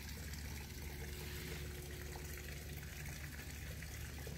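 Small creek water trickling steadily.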